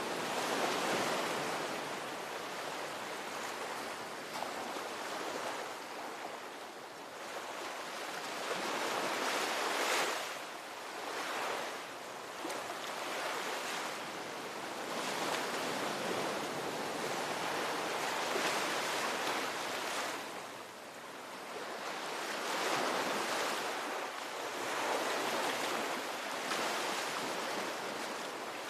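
Ocean surf: waves breaking and washing in, a continuous rushing that swells and fades every few seconds.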